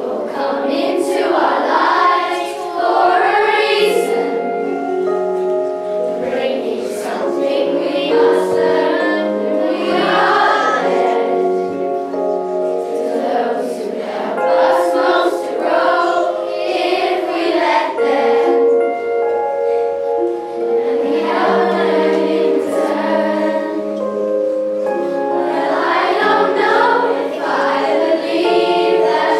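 A choir of primary-school children singing together over musical accompaniment, in sung phrases with held notes.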